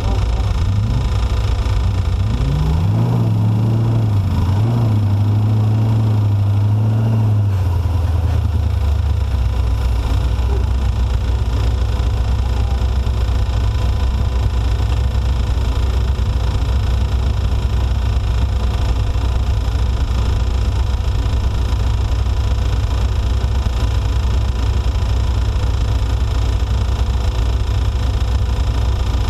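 Off-road race vehicle's engine running hard under way. Its pitch climbs about three seconds in and holds until about seven seconds, then settles into a steady, loud rumble of engine and mechanical noise.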